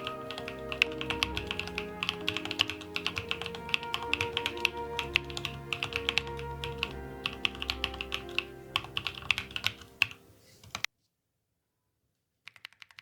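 Typing on a Chosfox CF81 mechanical keyboard with Voyager tactile switches: rapid, uneven key clacks over background music. Both fade out about ten seconds in, and after a second or so of silence the typing resumes faintly, without music, near the end.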